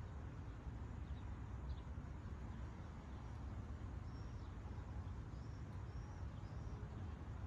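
Seashore ambience: a steady low rush of the sea, with several short, high bird chirps, most of them in the second half.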